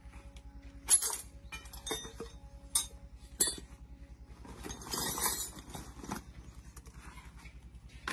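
Small diesel engine idling with a steady low, even beat, over which metal parts clink sharply several times in the first few seconds, followed by a short scraping noise about five seconds in.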